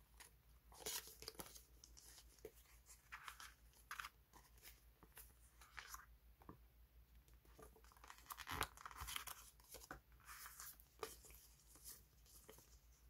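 Die-cut stickers rustling and crinkling as a handful is shuffled, spread out and pressed onto a sheet of paper by hand, in irregular soft scrapes and crackles. The loudest flurry comes a little past halfway.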